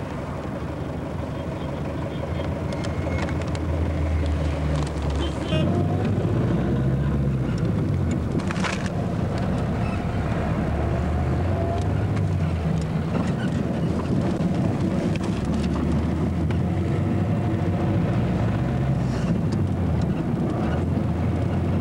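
Car engine and road noise heard from inside the cabin while driving, a steady low drone whose pitch shifts and grows louder about five seconds in, with a brief noisy rush about nine seconds in.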